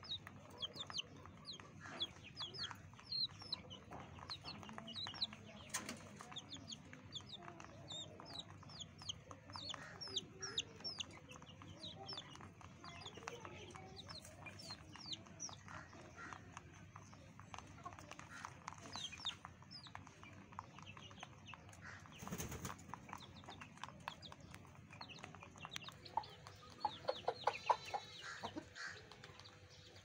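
Chickens clucking amid many quick, high chirps, with a denser run of rapid clucking near the end.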